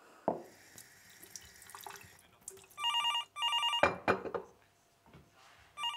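Telephone ringing: a double electronic ring about three seconds in, with the next ring starting at the very end. Under it are water and glasses knocking as they are washed at a kitchen sink.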